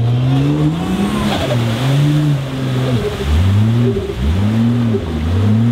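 A competition 4WD's engine, a GQ Nissan Patrol with a Ford Barra straight-six, revved hard over and over. Its pitch rises and falls in quick swells about once a second, as the driver works the throttle to push the truck through mud and water.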